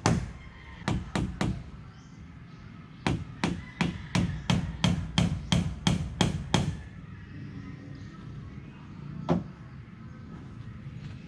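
A hand tool striking wood in a series of sharp blows: a few at first, then a fast steady run of about a dozen at about three a second that stops, and a single blow near the end.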